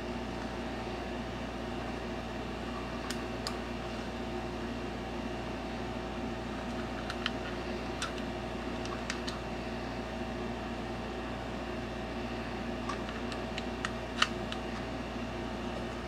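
Scattered light plastic clicks and taps of a wireless computer mouse being handled and turned over in the hands, the sharpest click near the end, over a steady mechanical hum.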